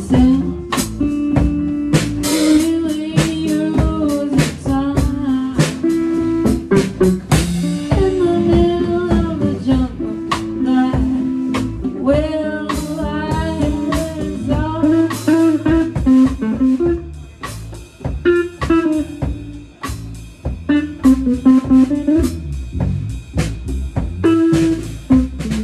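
Live blues band playing: guitar over bass notes, with a drum kit and cymbals keeping a steady beat close by.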